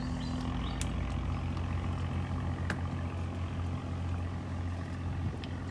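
A low, steady engine hum, with a few faint clicks.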